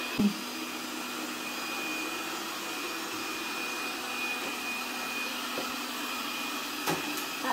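Lubluelu SL60D robot vacuum running steadily as it drives across a hard floor: an even whirr with a faint high whine. There is a short click near the end.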